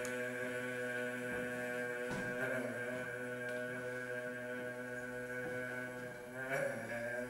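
Sustained chant-like drone: a stack of steady held tones, shifting briefly about two seconds in and again near the end.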